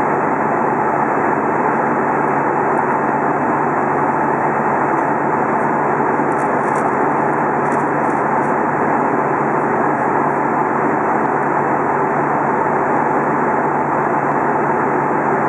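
Steady cabin noise of an Airbus A320 in flight, heard from a window seat beside the engine: the jet engine and the airflow past the fuselage make an even, unbroken rush.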